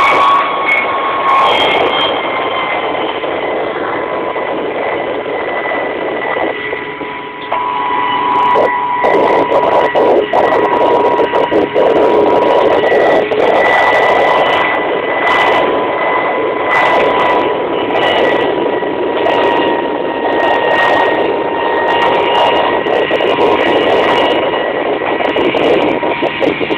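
Kamov Ka-26 helicopter heard from inside the cockpit in low flight: its twin radial piston engines and coaxial rotors running with a steady whine over a dense drone. The level dips briefly about seven seconds in, then runs louder.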